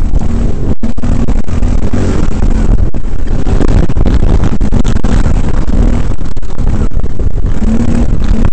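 Quad bike (ATV) engine running under throttle on a rough dirt track, its pitch shifting as the rider works the throttle, under a loud, distorted wash of wind and jolting on the onboard microphone. The sound cuts out for an instant about a second in and again near three seconds.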